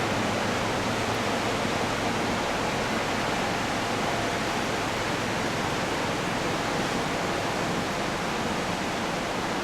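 The Smith River running in flood: a steady, even rush of swollen, fast-moving water.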